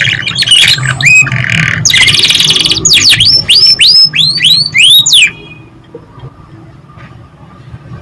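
Domestic canary singing a loud, fast song: rapid trills, a buzzy rolling phrase, then a run of about eight rising whistled notes. The song stops about five seconds in, leaving a quieter low hum.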